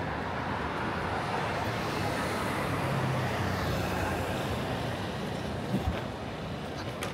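City street traffic: a motor vehicle passing close by, its engine rumble building to a peak about three seconds in and then fading. Two short knocks sound near the end.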